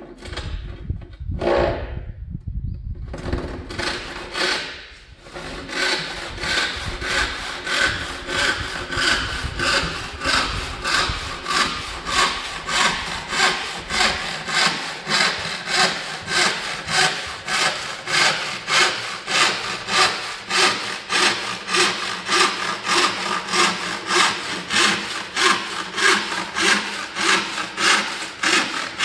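Hand-sawing a wooden board with a Western handsaw with a 0.7 mm thick blade. A few uneven strokes start the cut in the first few seconds, then the sawing settles into a steady rhythm of rasping push-and-pull strokes, a little under two a second.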